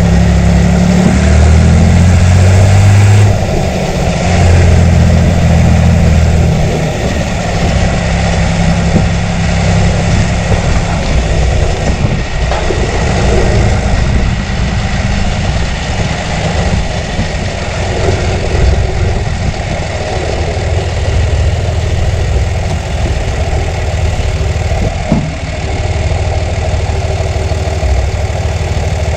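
John Deere 3350 tractor's six-cylinder diesel engine running. It is deeper and heavier for the first six seconds or so, then settles to a steady, lighter run.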